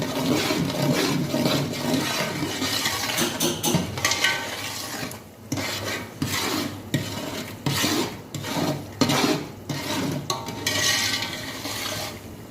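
Semolina being stirred and scraped around a pan as it roasts in ghee, the first stage of sooji halwa. A steady scrape at first, then separate strokes with short pauses between them in the second half.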